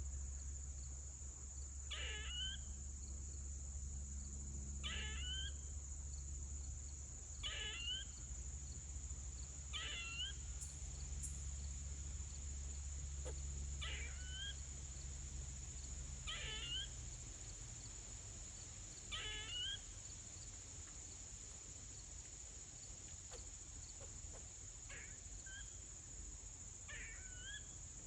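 A squirrel calling again and again with short, high screeching calls, one about every two to three seconds, a little weaker and further apart near the end. A steady high insect drone runs underneath.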